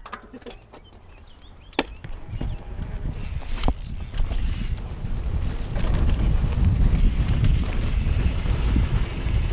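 Wind rushing over a helmet-mounted camera's microphone, growing louder as a downhill mountain bike picks up speed, with sharp knocks and rattles from the bike over the bumps.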